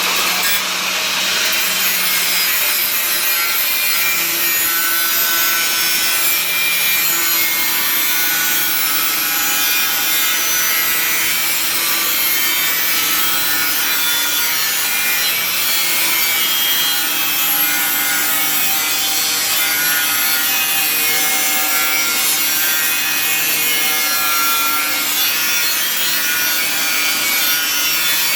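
Power tool cutting through the car's sheet-steel floor panel, a steady, continuous rasping cut with a faintly wavering motor tone.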